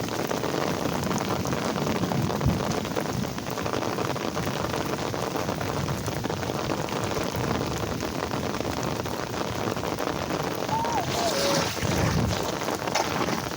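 Steady rain falling on hard ground, an even hiss of drops, with a few short chirping notes near the end.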